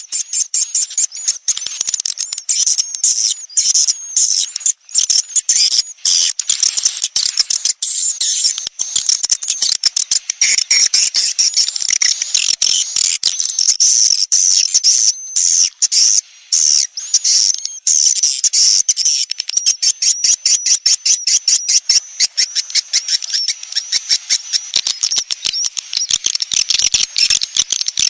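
Swiftlet lure call: an unbroken, high-pitched chatter of twitters and rapid clicks from swiftlets, a 'sedot anakan' track meant to draw young swiftlets into a swiftlet house.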